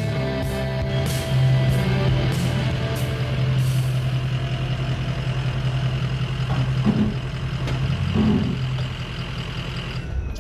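Rock intro music with electric guitar and drums, ending on a long held low chord that dies away near the end.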